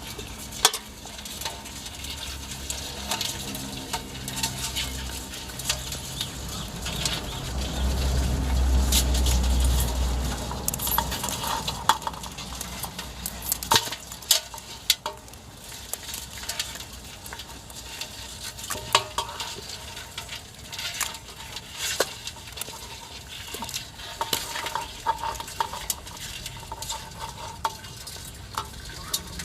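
A metal spoon or ladle stirring in a cooking pot, with irregular sharp clinks and scrapes against the metal, some ringing briefly. A low rumble swells for a few seconds in the first third.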